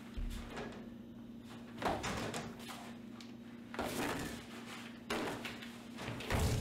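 Four dull thuds and knocks, a second or two apart, over a steady low hum; near the end a loud deep rumble sets in.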